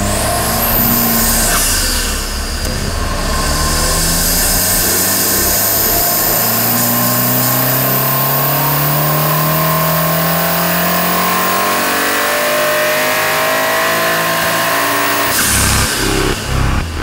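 Turbocharged 2.0 TSI EA888 Gen3 inline four-cylinder engine, fitted with an upgraded turbo, revving on the dyno in a long pull: its pitch climbs steadily for several seconds, with a high whine rising alongside. A rhythmic beat of music comes in near the end.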